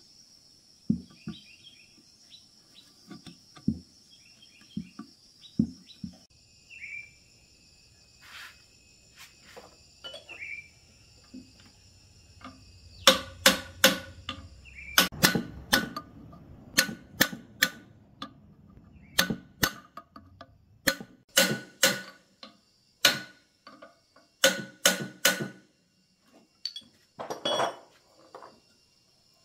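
A run of sharp knocks and taps, sparse and soft at first, then loud and often in quick pairs or threes from about halfway through. Behind them is a steady high insect trill.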